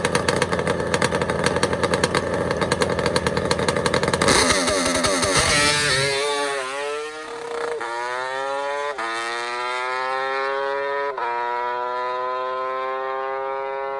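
Kawasaki H2 750 three-cylinder two-stroke drag bike running hard and close, then launching and accelerating down the strip. Its pitch climbs and drops back at each upshift, four times, as it pulls away.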